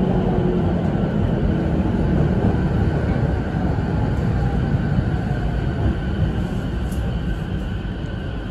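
Sotetsu 10000 series electric commuter train heard from inside the passenger car while running: a steady rumble of wheels on rail with a faint steady whine from its Mitsubishi IGBT VVVF traction drive. The sound grows gradually quieter in the second half.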